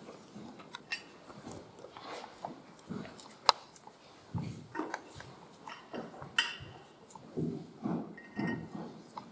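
Rustling, shuffling and scattered knocks and clicks of people moving about at a wooden lectern and handling a microphone, with one sharp click about three and a half seconds in.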